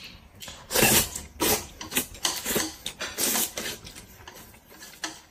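A person slurping thick wheat noodles: a string of short slurps about every half second, the loudest about a second in.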